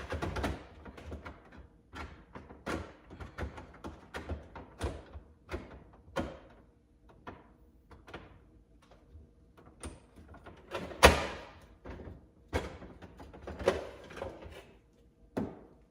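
Irregular plastic knocks and clicks of a Samsung HAF-QIN refrigerator water filter cartridge being handled and worked into its housing inside the fridge, with one sharp, louder knock about eleven seconds in.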